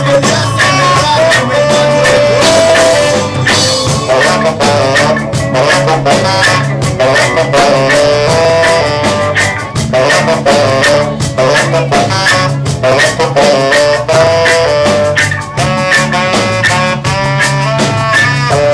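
Live band playing an instrumental passage, a saxophone carrying the melody over a steady low bass part and a regular drumbeat.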